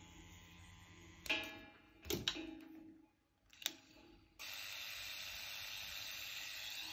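A faint steady low hum, then a few short knocks and clatters of things being handled, each with a brief ring, followed by a steady hiss from about four seconds in.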